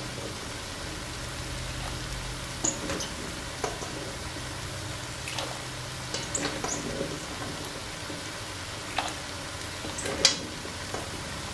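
Steady bubbling and sizzling from a pot of boiling water and a hot skillet, with scattered clinks and small splashes as a metal slotted spoon scoops potato pieces from a bowl and lowers them into the boiling water. The sharpest clink comes a little before the end.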